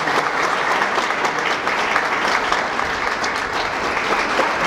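Audience applauding steadily: many people clapping together in a large hall.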